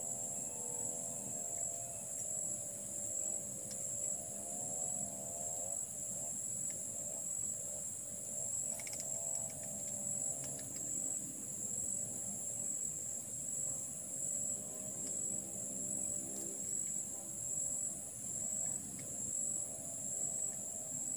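Steady high-pitched chorus of insects chirring in the grass, running without a break, over a fainter wavering lower tone. A few faint clicks come about nine seconds in.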